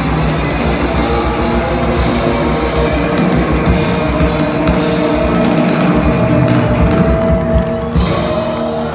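Live rock band playing loudly, with drum kit and electric guitars. About eight seconds in the drumming stops abruptly while the guitars ring on.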